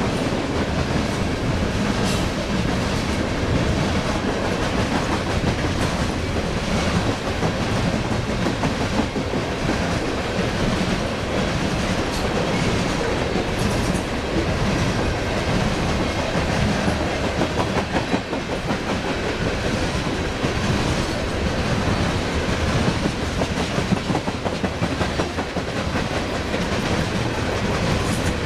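Loaded coal cars of a long freight train rolling past: steady noise of steel wheels on the rails, with occasional clicks as wheels cross rail joints.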